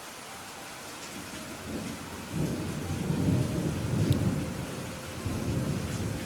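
Steady rain with a long roll of thunder that builds about two seconds in, is loudest around the middle and dies away near the end.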